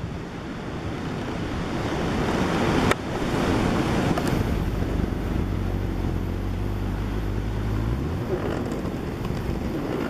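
Gale-force typhoon wind buffeting the microphone over a rough, heavy sea surging against the harbour quay, growing louder over the first few seconds. A low steady rumble runs through the middle, and there is a single sharp click about three seconds in.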